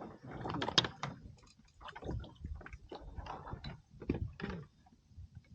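Irregular knocks and clicks from gear being handled on a fishing kayak.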